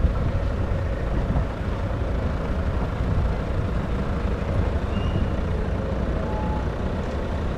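Car driving slowly on a dirt road: a steady low rumble of engine and tyres.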